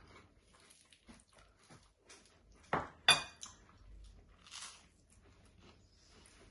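Crunchy toast being bitten and chewed, with a faint scatter of small crunches, and two sharp clinks of a knife against a plate about three seconds in, the second the loudest and ringing.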